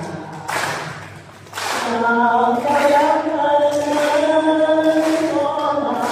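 An elderly Buddhist nun singing slowly into a handheld microphone. After a brief pause about a second in, she holds long, steady notes.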